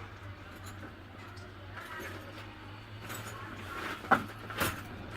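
Repair work on a semi-automatic box strapping machine: two sharp knocks about four seconds in, half a second apart, the first the louder, over a steady low hum.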